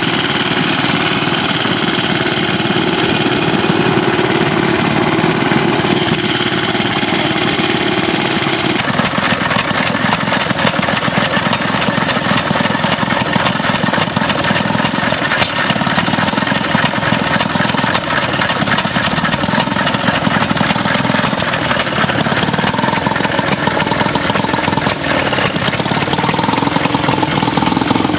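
Small vintage stationary engines running steadily with a rapid, even firing beat; about nine seconds in, the sound changes abruptly to a different engine.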